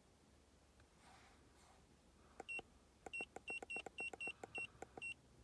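Handheld MB II diagnostic scan tool beeping as its arrow keys are pressed to scroll a menu. A quick run of short, high beeps, each with a click, several a second, starting about two and a half seconds in.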